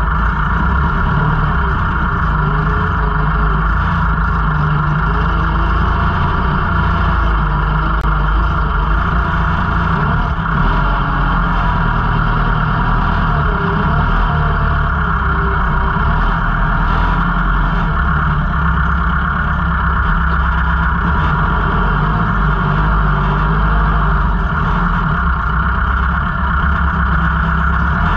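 Kubota L5018 tractor's diesel engine running steadily as the tractor drives, an even, unbroken drone.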